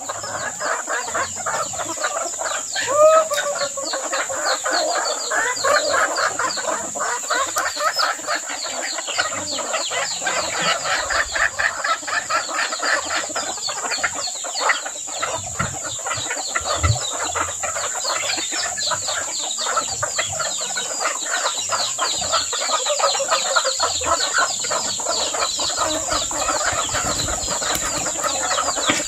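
A flock of chickens clucking and pecking at scattered feed on bare ground, a dense patter of pecks and calls, with a short rising call about three seconds in.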